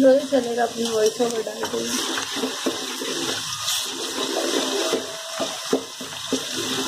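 Sliced onions and ginger-garlic paste frying in hot oil, sizzling steadily, while a slotted metal spoon stirs them and clicks against the metal pot.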